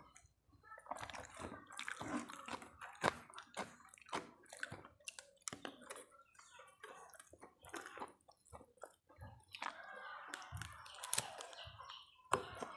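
A person eating close to the microphone: wet chewing and smacking mouth sounds with many small irregular clicks.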